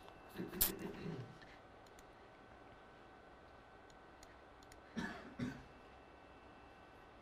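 A few faint clicks and knocks: a cluster with one sharp click about half a second in, then two short knocks about five seconds in, over a faint steady electrical hum.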